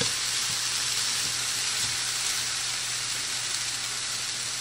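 Fried rice frying on high heat in a hot pan: cooked white rice, mixed vegetables and egg sizzling with a steady hiss that eases slightly.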